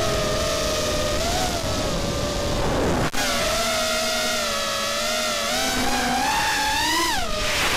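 Brushless motors and propellers of an FPV racing quadcopter (Armattan F1-4B frame, Cobra 2204 2300kv motors, Dalprop 4-inch tri-blade props) whining as heard from its onboard camera, the pitch rising and falling with the throttle. There is a brief dropout about three seconds in, and near the end the whine climbs sharply and then drops.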